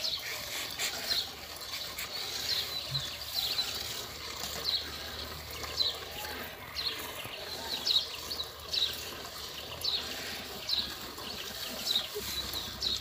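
Hand milking a cow into a metal pail: milk squirting into the pail in short, even spurts, about two a second.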